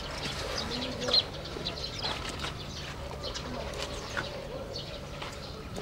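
Birds chirping and calling, with short high calls scattered throughout and one sharper, louder note about a second in.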